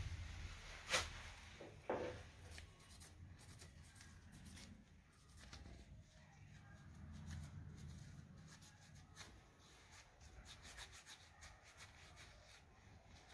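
Faint rubbing and scratching with a run of light ticks, and two sharper clicks in the first two seconds: parts of an old magnetic contactor being rubbed clean with sandpaper.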